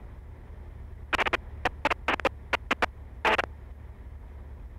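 Low, steady drone of a Cessna 172's engine on final approach, heard through the headset intercom. About a second in, it is broken by a run of about a dozen sharp static crackles over roughly two and a half seconds.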